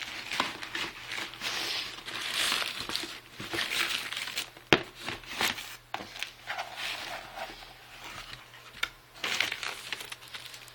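Parcel packaging being handled and unwrapped: bursts of crinkling and rustling, with scattered sharp clicks and one louder knock about halfway through.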